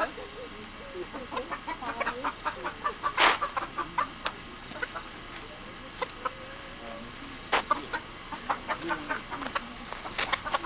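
Chickens clucking in the background over a steady, high insect drone, with scattered ticks and a sharp knock about three seconds in.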